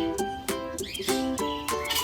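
Background music: a plucked string instrument playing quick, evenly spaced notes.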